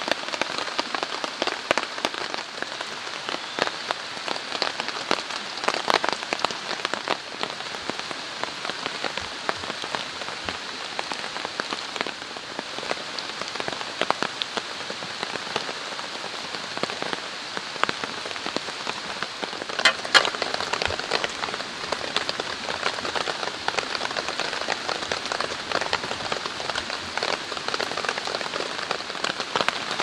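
Steady rain falling on a tent fly and tarp: many separate drop hits over a continuous hiss, with a short run of sharper, louder hits about two-thirds of the way through.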